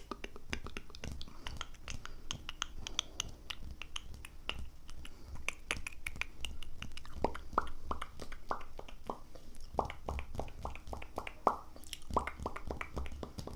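Close-miked ASMR mouth sounds: rapid wet clicks and small pops, several a second, over a low rumble.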